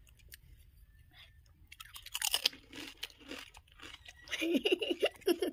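Crunching and chewing of a crisp pani puri shell, filled with spiced water and eaten whole. The crunch is loudest about two seconds in. Near the end a muffled voice sounds through the full mouth.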